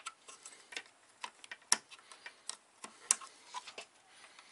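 Irregular light clicks and taps from engine-bay parts and clips being handled by hand, two of them sharper about a second and a half and three seconds in.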